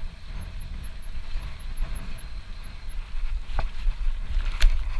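Mountain bike rolling over rough grass and stony ground, with wind buffeting the microphone as a low rumble. A few sharp knocks from the bike jolting over rocks come in the last second and a half.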